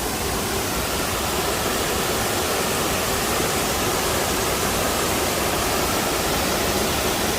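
Waterfall: a steady rush of falling water, without a break.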